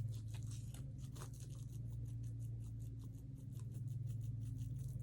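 Small fidget toys being handled and sorted, with many quick light clicks and scratchy rustles, several a second, over a steady low hum.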